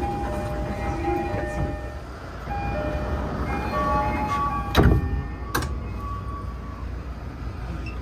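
Toei Subway car's electronic door chime plays a short run of tones twice. About five seconds in, the stainless sliding doors, driven by a rack-type door engine, shut with a loud thud and a smaller click, over the car's low steady hum.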